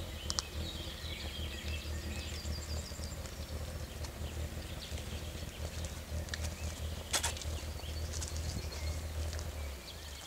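Several songbirds chirping and trilling, with short high calls throughout, over a steady low rumble that fades near the end. A sharp click about seven seconds in.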